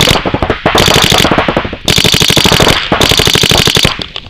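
DLX Luxe electronic paintball marker firing rapid strings of shots, four bursts separated by short pauses.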